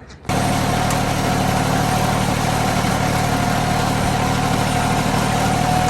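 Tractor engine running steadily at constant speed, with a steady whine over the engine note; it cuts in abruptly just after the start.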